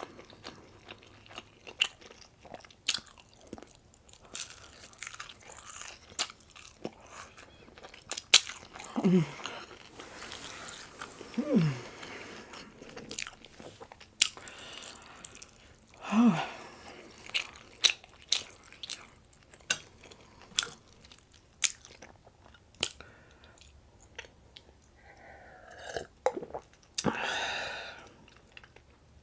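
Close-miked chewing and crunching of breakfast food, with many wet mouth clicks, three short falling hums of enjoyment along the way, and a breathy rush near the end.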